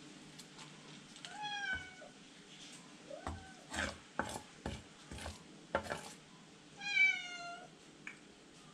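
A cat meows twice, once about a second in and again louder near the end, each a short cry that falls slightly in pitch. In between, a heavy knife knocks several times on a wooden chopping board as fish is cut.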